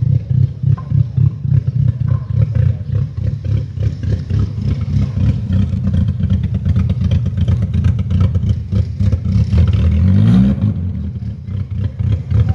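Volkswagen Jetta's engine running at low speed with a loud, uneven exhaust rumble as the car creeps forward; about ten seconds in it revs briefly, the pitch rising, then drops back.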